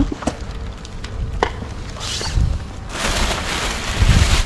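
Handling noise: a few sharp knocks, then rustling that grows louder over the last second and a half, with low thumps near the end.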